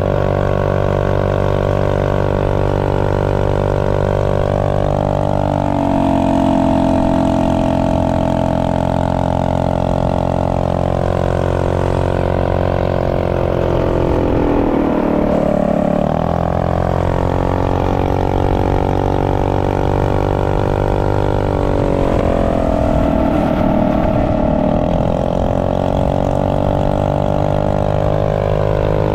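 Predator Ghost 212cc single-cylinder engine in stock form, running under load at high revs. The pitch sinks and climbs back up about halfway through, and dips once more near the end as the throttle is eased and reopened.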